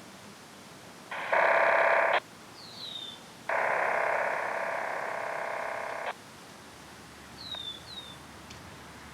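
Two bursts of electronic signalling tones like touch-tone (DTMF) dialing: a short one about a second in and a longer one of about two and a half seconds. Short falling chirps are heard twice between and after them.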